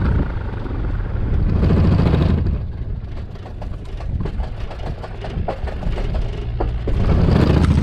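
Motorcycle riding on the road: wind rushing over the helmet microphone with a low rumble underneath, swelling louder and easing off twice.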